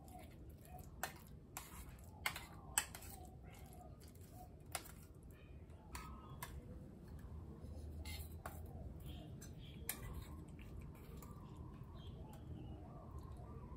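A metal spoon clinking and scraping against a small stainless steel bowl while mashing boiled egg, in irregular sharp clicks, a few of them louder taps.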